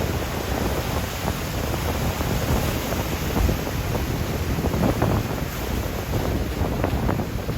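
Wind buffeting the microphone over the steady wash of breaking ocean surf, with uneven low rumbling gusts.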